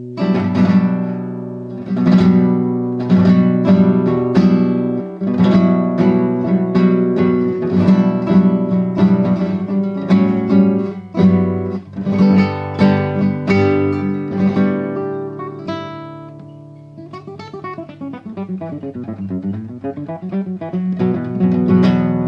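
Improvised acoustic guitar playing: strummed chords and plucked notes in quick succession. About two-thirds of the way in it grows quieter, and a sound sweeps down in pitch and back up before the strumming returns near the end.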